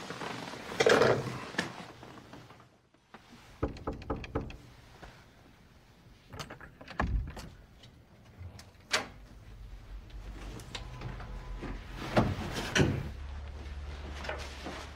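A desk telephone handset is hung up in its cradle with a clatter about a second in. It is followed by scattered door sounds, sharp clicks and thuds, with the loudest pair near the end.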